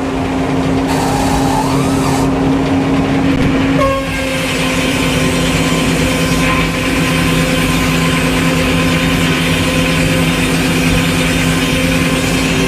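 Sawmill engine running steadily at speed; about four seconds in, a higher hiss joins it and carries on over the engine.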